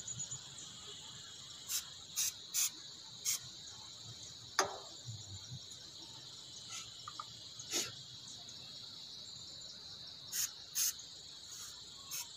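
Steady high-pitched chirring of crickets or similar insects, broken by about nine short, sharp bursts at irregular intervals.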